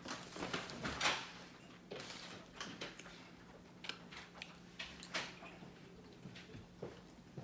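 Person eating: irregular wet chewing and mouth clicks, with a faint steady hum underneath.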